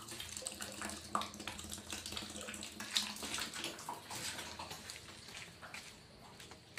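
Water running from a tap into a plastic basin, splashing steadily, fading near the end.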